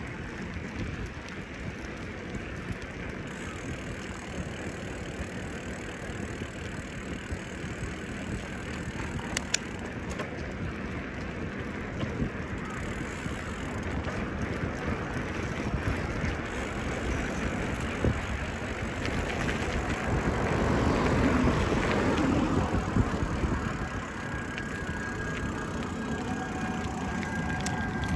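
Bicycle being ridden: steady tyre and ride noise with small clicks and rattles from the bike, swelling louder about twenty seconds in.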